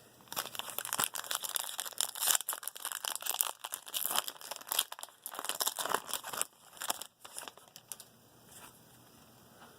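Wrapper of a 2018 Topps Stadium Club baseball card pack crinkling and tearing as the pack is opened: a dense run of crackles that dies away a couple of seconds before the end.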